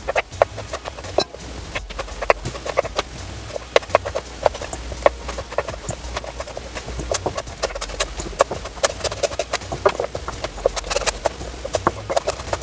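Chef's knife cutting red potatoes and carrots on a wooden cutting board: the blade knocks against the board two or three times a second, unevenly spaced.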